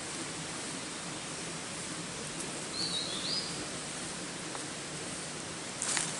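Steady outdoor forest background hiss, with one short whistled bird call about three seconds in and a rustle of dry leaves starting near the end.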